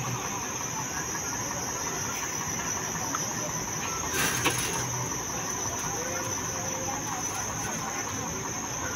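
Crickets chirping at night in one steady, unbroken high trill, with a short burst of noise about halfway through.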